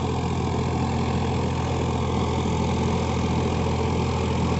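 Farmtrac 60 Supermaxx tractor's 55 hp diesel engine running steadily under load, pulling an 11-tine cultivator weighed down by men standing on it. A constant low engine hum.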